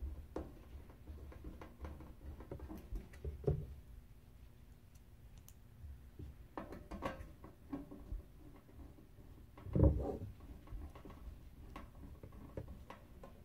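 Light handling noises: scattered clicks and small knocks of small parts and a hand tool against the desk and the printer's base, with one louder knock about ten seconds in.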